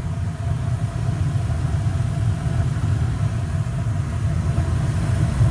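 Old Payne furnace's burner running lit, a steady low rumble with a faint steady hum above it.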